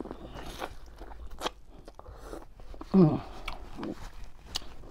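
Close-up mouth sounds of biting into and chewing a boiled corn cob, with small crisp clicks of the kernels popping. A brief hum from the eater about three seconds in.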